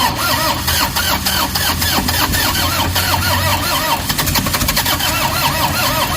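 Toyota Hiace common-rail diesel engine cranking on the starter without catching, the starter whirring in an even pulsing rhythm for several seconds. The no-start goes with fault code P0087, low fuel rail pressure, which was traced to a failed high-pressure fuel pump.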